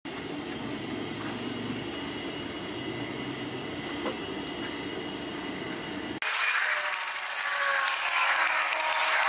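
Steady background hum for about six seconds, then a hand saw starts cutting a wooden board: loud rasping back-and-forth strokes with a wavering ringing tone.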